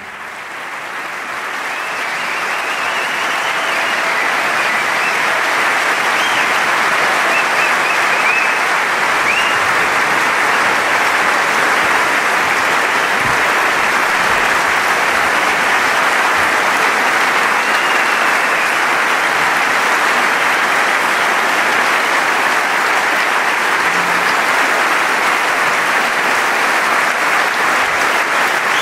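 Large concert-hall audience applauding, the clapping swelling over the first few seconds after the orchestra's final chord and then holding steady.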